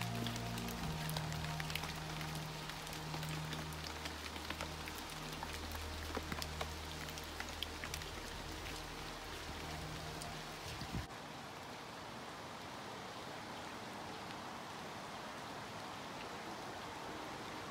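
Rain falling steadily, with scattered drops ticking close by and low held tones underneath; about eleven seconds in the low tones cut out abruptly, leaving an even hiss of rain.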